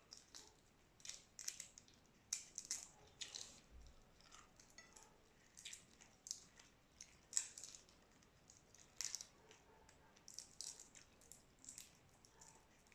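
Close-miked eating of boiled shrimp: scattered soft crackles, clicks and wet smacks from shell and chewing, irregular and a few per second.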